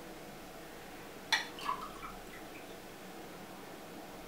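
A single sharp glass clink about a second and a half in, a glass milk carafe against a drinking glass, followed shortly by a soft short sound; otherwise only quiet room tone.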